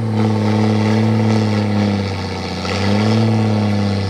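Off-road 4x4 vehicle engine running hard under load. The revs sag a little about halfway, then climb back up about three seconds in.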